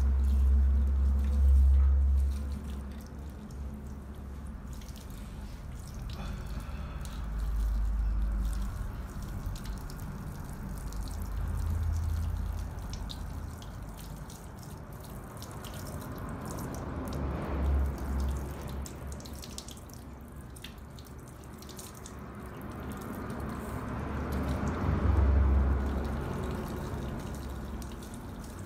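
Water from a shampoo-basin sprayer running over hair and splashing into a salon sink during a hair rinse. The flow swells twice, near the middle and towards the end, with several low rumbles underneath.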